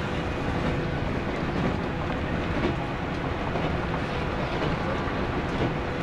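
JNR 165 series electric multiple unit running at speed, heard from inside a passenger car: steady wheel-and-rail running noise with a light clickety-clack.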